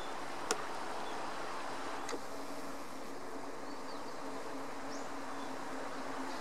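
A steady low drone with a faint hum under it, broken by two sharp clicks about half a second and two seconds in, the first the louder. A few faint, short high chirps come near the middle.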